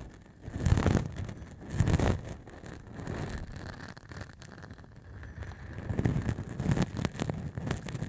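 Short beard stubble rubbed directly against a handheld Tascam recorder's microphone, giving a rough scratching rasp with low rumbling from the contact. The strokes swell louder about a second in and again at two seconds, then build again from about six seconds on.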